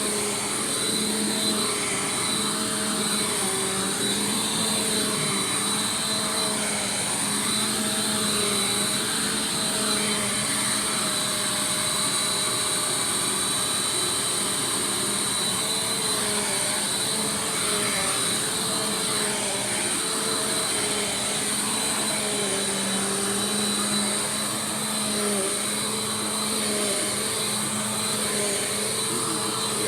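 Bissell PowerForce Compact Turbo upright vacuum cleaner running steadily, its motor whine carrying a few pitches that waver slightly.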